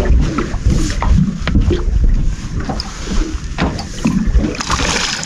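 Wind buffeting the microphone over the rumble of water against a small boat's hull, with scattered knocks and clicks from fishing rods and gear being handled.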